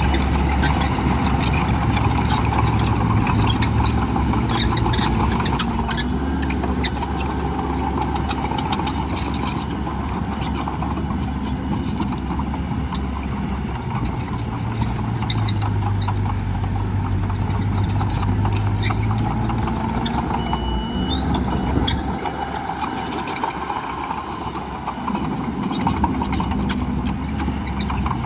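Heavy diesel earthmoving machinery running, a dump truck or bulldozer, its engine note shifting up and down several times, with scattered short clanks over it.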